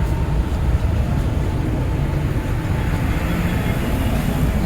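Busy highway traffic: a steady low rumble of passing vehicles, with a hiss that swells about three seconds in.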